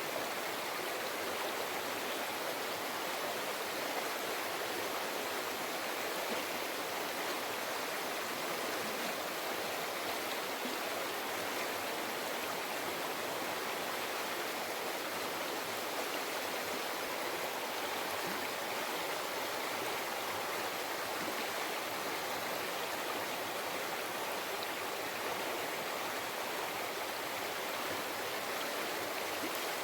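Mountain river flowing over rocks, a steady rushing and babbling of water.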